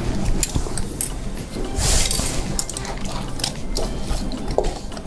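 Wooden spatula stirring chunks of young jackfruit in simmering thin coconut milk in a steel wok, with repeated scrapes and light knocks against the metal and a longer scrape about two seconds in.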